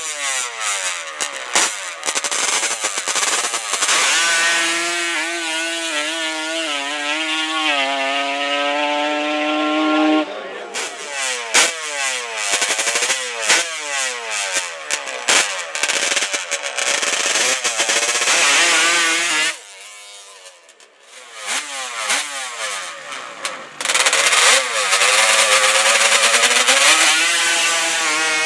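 High-revving racing ATV engines. There are repeated quick revs, then a run of about six seconds with the pitch climbing step by step as it pulls through the gears. After a short lull about two-thirds of the way in, engines run hard again near the end.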